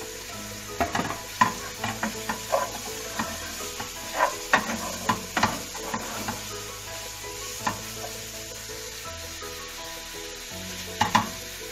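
Sausage links frying in carrot-and-shallot soffritto in a nonstick pan, a steady sizzle under irregular scrapes and knocks of a wooden spoon as they are stirred and turned to brown.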